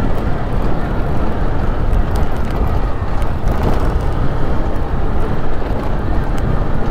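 Motorcycle engine running steadily at low road speed, mixed with a loud, low wind rumble on the camera microphone.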